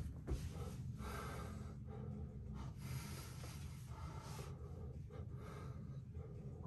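Bowling ball being wiped clean by hand: faint, repeated rubbing strokes over its surface, with a steady low hum underneath.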